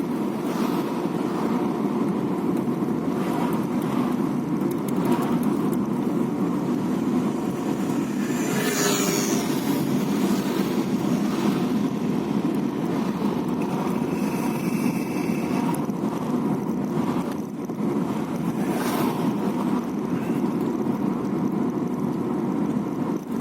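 Car driving, with steady road and engine noise in the cabin. There is a short scrape about nine seconds in and a high squeal of about two seconds around fifteen seconds in. This is the squealing or scraping that comes on in right-hand curves since the brakes were replaced; its cause is not known.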